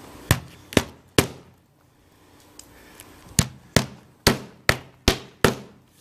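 Hammer driving roofing nails through an asphalt shingle: three quick strikes, a pause of about two seconds, then six more strikes at about two or three a second.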